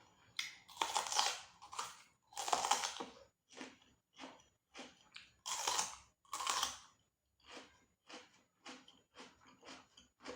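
Close-up crunching and chewing of crispy fried mole crabs (yutuk). Several loud crunching bites come in the first seven seconds, then steady chewing at about two strokes a second.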